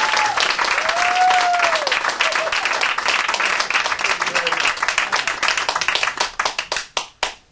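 Audience applauding, thick at first, then thinning out to a few scattered claps near the end.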